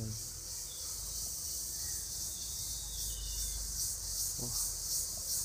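Chorus of insects, a steady high-pitched pulsing buzz, with a brief human voice about four and a half seconds in.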